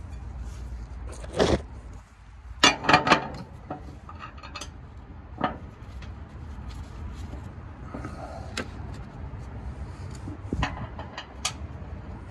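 Light metallic clicks and knocks over a low steady rumble, with a quick cluster of them about three seconds in and a few single ones later: gloved hands handling a skid plate's bolt-on access cover and its screws.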